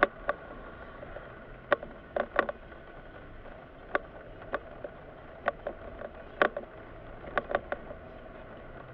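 Inside a Mitsubishi car's cabin while driving slowly, a low steady hum of engine and road noise, broken by about a dozen sharp clicks or taps at irregular intervals.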